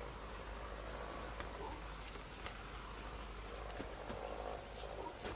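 Steady high insect trilling, with a few faint scattered clicks.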